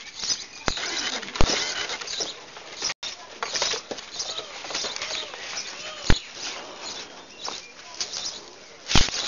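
Young puppies, almost seven weeks old, squeaking and whimpering in many short high calls over a busy scuffling, scratchy rustle, with a few sharp knocks.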